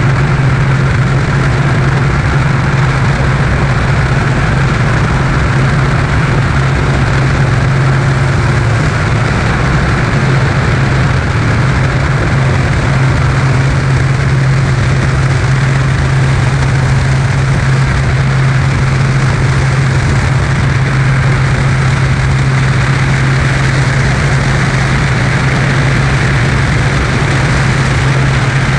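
Light propeller aircraft's engine running steadily at high power during the takeoff climb: a constant low drone that does not change in pitch, with rushing air noise over it.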